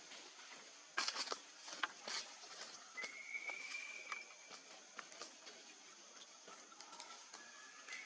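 Scattered rustles and light knocks, then a single thin, high, drawn-out animal call about three seconds in, lasting about a second, over a steady high hiss.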